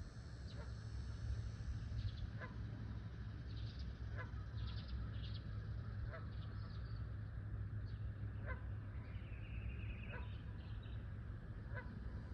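Waterfowl on a pond giving short repeated calls, seven in all, about every one and a half to two seconds, over a steady low rumble. Small high chirps come in between during the first half, and a steady high trill joins for the last few seconds.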